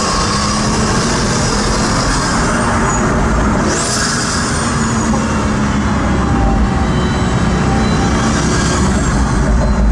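Pagani Huayra's twin-turbo V12 running at a steady cruise, heard from inside the cabin, with tyre noise on a wet road. Brief high swishes come about four seconds in and again near the end.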